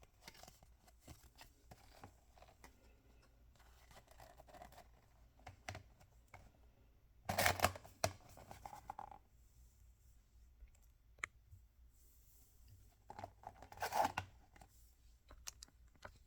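Toy packaging being handled and torn open by hand: light rustling and small clicks, with two louder tearing rips about a third and nearly nine-tenths of the way through.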